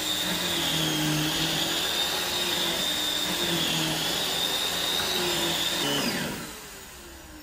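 Dyson DC21 canister vacuum running with its electric motorized powerhead on a rug: a steady rush of air with a high whine and lower hum that waver in pitch. About six seconds in it is switched off, and the whine falls away as the motor spins down.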